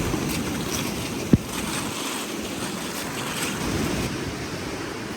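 Small waves of Lake Superior washing onto a stony shore, with some wind on the microphone. A single sharp knock just over a second in.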